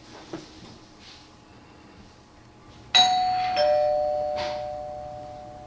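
Two-tone doorbell chime: a higher note then a lower one about half a second later, both ringing on and slowly fading.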